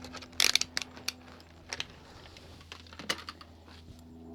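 A string of light, irregular clicks and taps, with a quick cluster of the loudest ones about half a second in and single clicks after.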